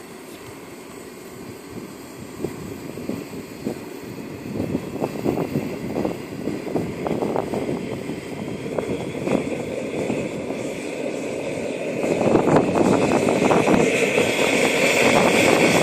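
Model helicopter's JetCat PHT3 turboshaft turbine running up on the ground while its main rotor turns, getting steadily louder. It steps up about twelve seconds in, and a high turbine whine comes in and climbs near the end.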